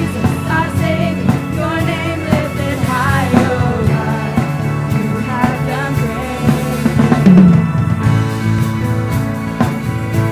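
A worship band playing a rock-style instrumental passage on drum kit and bass, with a wavering melodic line over it during the first few seconds.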